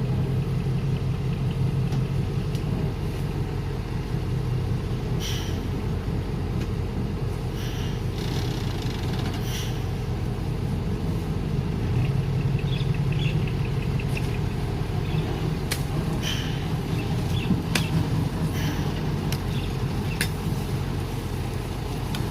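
Komatsu tracked excavator's diesel engine running steadily, with scattered short knocks and clanks from the working machine.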